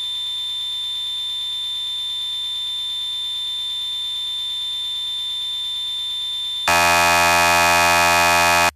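Electronic synthesizer sound: a steady high-pitched tone is held for about six and a half seconds. Then a loud, harsh buzzing tone comes in for about two seconds and cuts off suddenly.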